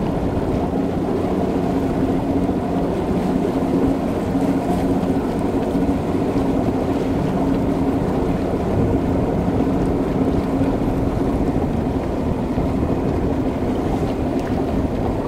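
Bass boat's outboard motor running steadily at low speed, a constant even hum.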